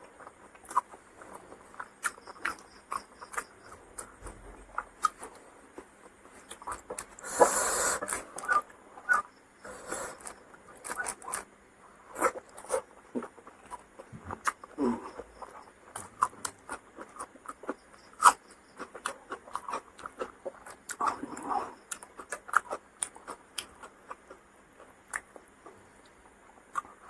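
A person chewing and smacking food close to the microphone: irregular wet mouth clicks and ticks, with one louder burst of noise about seven seconds in.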